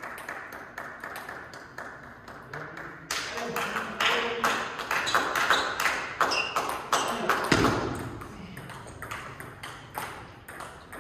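Table tennis ball clicking off bats and table in quick, uneven succession during a rally, with voices calling out in the middle of it and a single low thud about three quarters of the way through.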